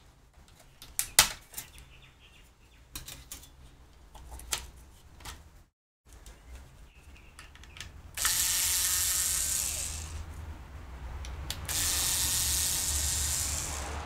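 Small electric screwdriver whirring in two runs of about two seconds each, backing out the screws on the side of a laptop hard drive's mounting bracket. Before it come scattered clicks and taps of a thin metal shield plate and the drive being handled.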